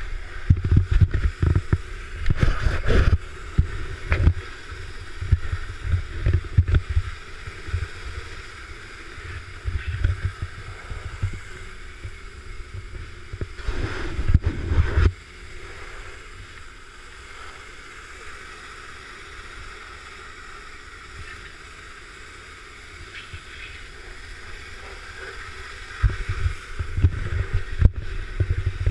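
High-pressure washer wand spraying water at a self-service car wash, a steady hiss under rumbling low buffets on the microphone. A loud surge comes around the middle; the spray then runs steadier and quieter for about ten seconds before the rumbling picks up again near the end.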